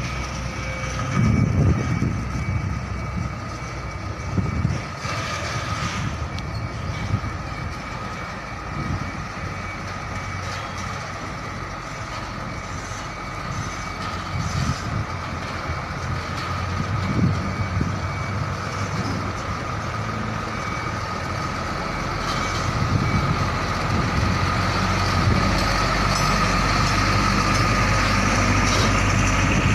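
Diesel engine of a container tractor-trailer running as the rig manoeuvres slowly across the yard. It grows louder over the last several seconds as the truck comes close.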